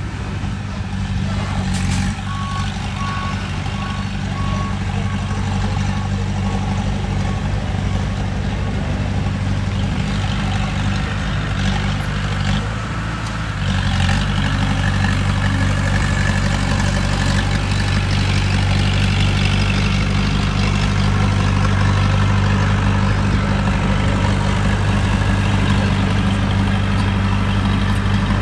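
Heavy diesel construction machinery running steadily, with a reversing alarm beeping at an even pace for several seconds near the start before fading. The engine dips briefly about halfway, then runs louder.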